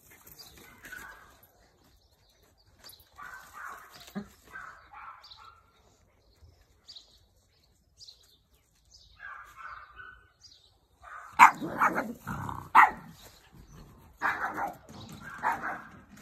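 Dogs barking: a few faint, scattered yaps at first, then a run of loud, sharp barks in the last five seconds, broken by a short pause.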